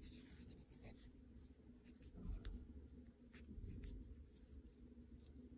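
Near silence with faint scratchy rustling and a few small ticks of a needle and thread being drawn through linen fabric during hand whip-stitching, with a couple of soft handling bumps.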